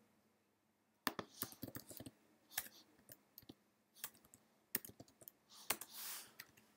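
Computer keyboard being typed on, faint sharp key clicks in short irregular runs with pauses between them, and a brief soft rush of noise about six seconds in.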